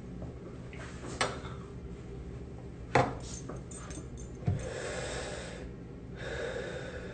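Phone being handled: a few sharp knocks and clicks, the loudest about three seconds in, followed by two short breathy hisses.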